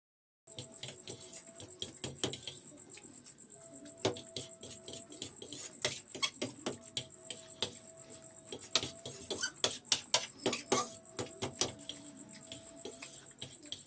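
Mixed chow mein being eaten fast at an eating contest: a stream of irregular sharp clicks and clinks starting about half a second in, under a faint steady high-pitched whine.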